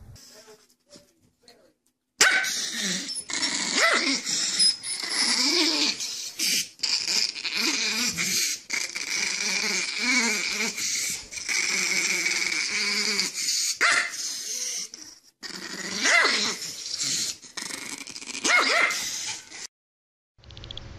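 Small long-haired dog howling and yipping in drawn-out cries that rise and fall in pitch, starting about two seconds in and stopping shortly before the end.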